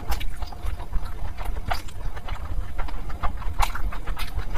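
Close-miked eating sounds of a person chewing curry-soaked meat and rice: wet, irregular mouth clicks and lip smacks.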